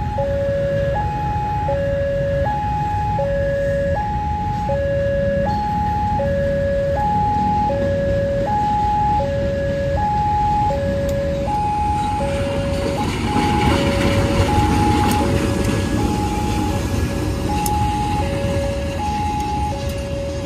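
Railway level-crossing warning alarm sounding its two-tone signal, a high and a low tone taking turns in an even, unbroken cycle: the sign that the crossing is closed for an approaching train. Under it runs the rumble of the diesel locomotive and passenger train, which swells about halfway through as the train comes past.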